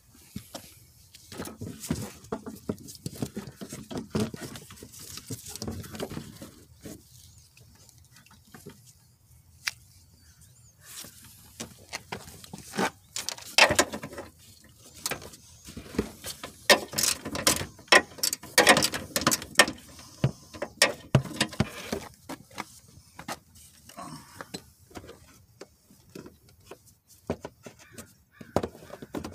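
Hand ratchet clicking in irregular runs as bolts on a car's front bumper support bracket are loosened, mixed with knocks and clanks of the metal bracket and tool. The clicking and knocking are busiest and loudest in the middle of the stretch.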